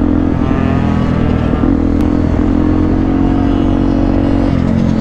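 Motorcycle engines running steadily while riding in a group of dirt bikes and a quad, with a constant engine note and a heavy low rumble.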